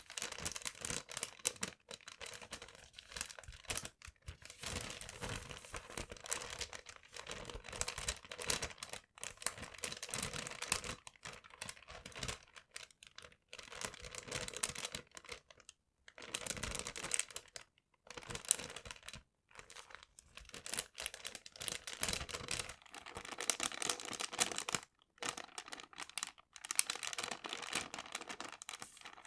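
Paper being crinkled and rustled in irregular stretches, broken by short pauses every few seconds.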